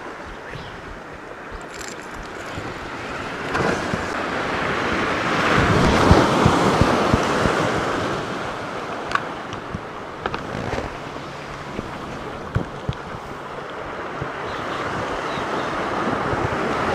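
Sea surf washing against rocks, swelling to a peak about six seconds in and then easing, mixed with wind buffeting the microphone. A few short light clicks are heard later on.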